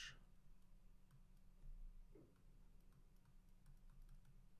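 Near silence with faint, scattered clicks of a stylus tapping and sliding on a tablet screen during handwriting.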